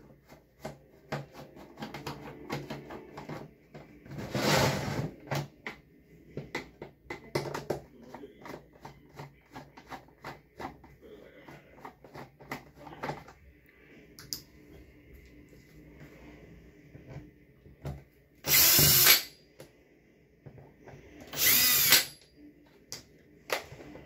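Power drill driving screws out of a plastic box fan's housing in short runs of about a second. There is one run about four seconds in and two louder ones near the end, with small clicks and knocks of plastic and screws being handled in between.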